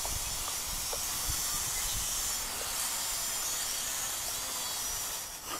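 Steady wind hiss on the microphone, with a faint thin high tone running through it.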